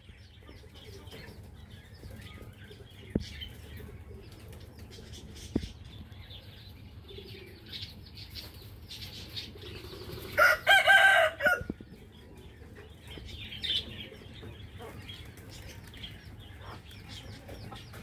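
A rooster crows once, a loud call of about a second and a half, about ten seconds in. Small birds chirp faintly in the background throughout.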